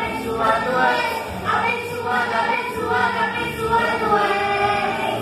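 A young girl singing a praise song into a microphone, her voice amplified, over sustained low backing notes that shift in pitch every second or so.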